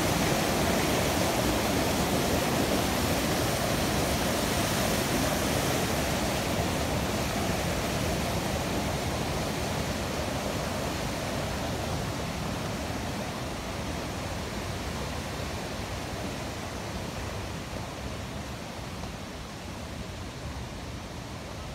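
Rushing water making a steady, even hiss that slowly fades.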